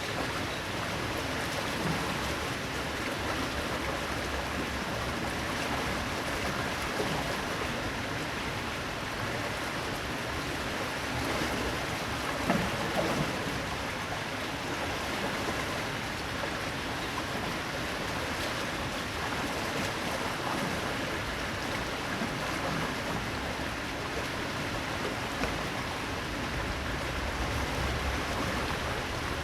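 Medium-sized waterfall pouring and splashing steadily, with a few sharper splashes about halfway through.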